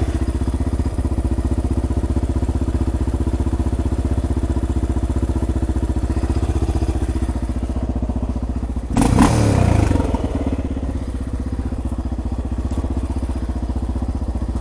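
Honda XR600R's single-cylinder four-stroke engine idling steadily, with a brief louder burst of noise about nine seconds in.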